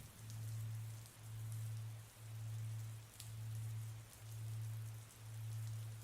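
Soft rain ambience with scattered drop ticks, under a low, steady-pitched hum that swells and fades about once a second, a pulsing tone laid into the sleep track.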